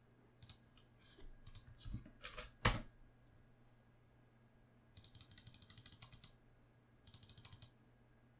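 Faint computer keyboard keystrokes and mouse clicks: a few separate clicks in the first three seconds, including a Ctrl+V paste, then two short runs of rapid light ticking about five and seven seconds in.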